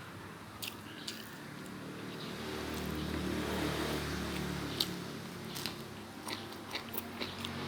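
A person chewing and biting food close to the microphone, with sharp crisp clicks of bites scattered through, most of them in the second half. A low hum swells and fades in the middle.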